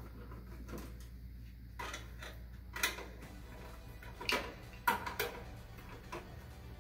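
Scattered sharp clicks and light knocks of hands and a screwdriver working at the power supply and its cables inside a metal desktop PC case, about five separate clicks spread through the middle, over a low steady hum.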